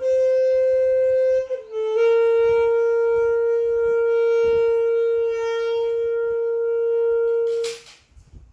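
Saxophone playing a slow melody: a note held for about a second and a half, a brief lower note, then one long note held for nearly six seconds. It ends with a short hiss and stops near the end.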